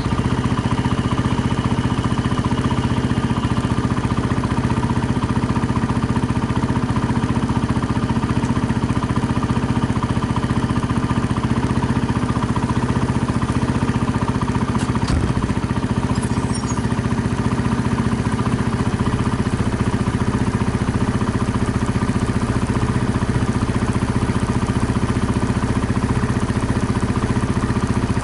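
Small motorcycle engine idling steadily, with a brief knock about halfway through.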